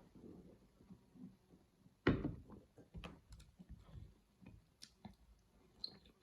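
A person chewing a big mouthful of food, with soft wet mouth clicks, and one louder thud about two seconds in.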